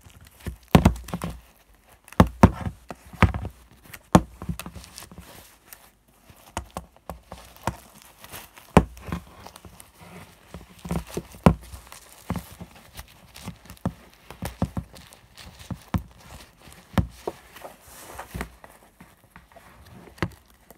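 Irregular knocks, bumps and rustles of a baby doll and its cloth outfit being handled against a desk close to the microphone.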